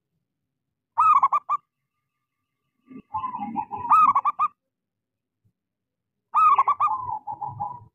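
Zebra dove (perkutut) singing: three bouts of quick, rhythmic cooing notes, about a second in, around three seconds in, and again near the end.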